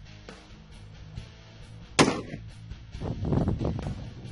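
A single sharp shot from a DPMS Panther Arms AR-15 rifle firing .223/5.56 NATO, about two seconds in, over background music.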